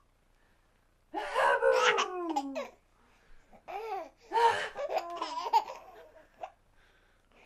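An 8½-month-old baby laughing in two bouts: a first burst about a second in that falls in pitch, then, after a short pause, a longer run of laughs.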